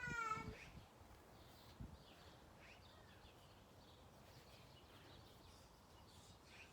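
Faint, scattered bird chirps over quiet outdoor background noise, with a short wavering pitched call ending about half a second in.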